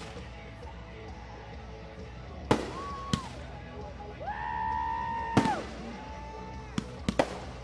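Fireworks going off: sharp bangs, with three steady whistling tones in between. The longest whistle, in the middle, ends in a loud bang, and a quick run of three bangs comes near the end.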